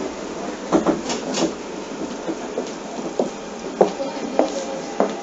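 Inside a Seibu 6000 series commuter train car: a steady background hum with light clicks and knocks at irregular intervals.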